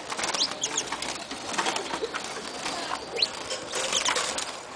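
Many caged wild birds calling together: short high chirps and quick sliding whistles over a busy patter of small clicks.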